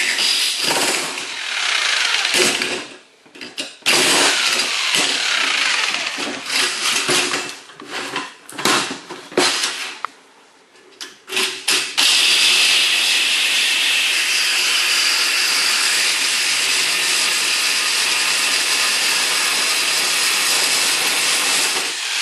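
Power tool cutting a quarter inch off a steel garage door track. It stops and starts repeatedly, cutting out briefly twice, then runs steadily from about halfway through.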